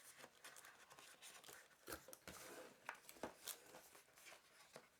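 Faint rustling and a few soft clicks of paper inserts and cardboard packaging being handled and lifted out of a box.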